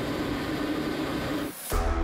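Steady in-flight cockpit noise of a Yak-130 jet trainer, a hiss over a steady hum, which drops out about one and a half seconds in. Background music with heavy bass and a guitar then starts.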